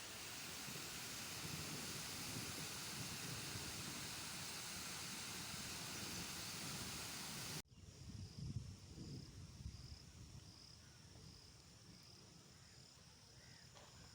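Steady hiss of falling rain, cut off abruptly about halfway through. A quieter scene follows, with an insect chirping in even pulses about one and a half times a second over a low rumble.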